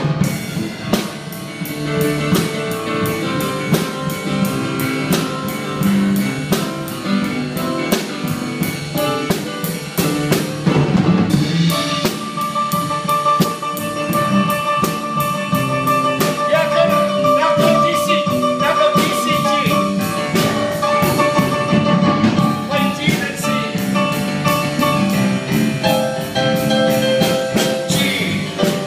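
A band playing an instrumental passage: electric keyboard over a drum kit keeping a steady beat, with a long held lead note ringing for about ten seconds in the middle.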